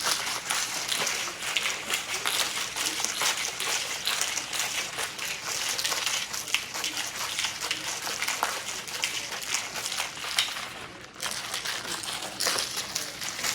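Water running from a kitchen tap and splashing as juicer parts are rinsed; the flow stops briefly about eleven seconds in, then starts again.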